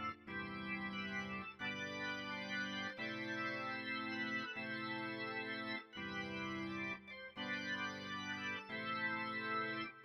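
Roland XV-5080 sound module playing the 'R&R B3 1' rock organ patch from the SR-JV80-08 60s & 70s expansion card, a sampled Hammond B3 type organ. It plays a series of held chords, each about one to one and a half seconds long, with brief breaks between them.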